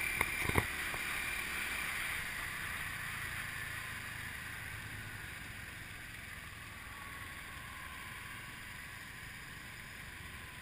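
Riding noise aboard a moving motorbike taxi: wind rushing over the microphone with the motorbike's engine and road noise underneath, a few sharp clicks about half a second in, and the whole growing gradually quieter.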